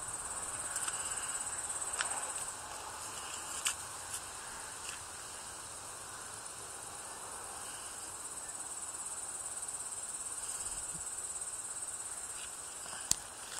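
Crickets trilling in a steady, high-pitched chorus, with a few sharp clicks, the loudest near the end.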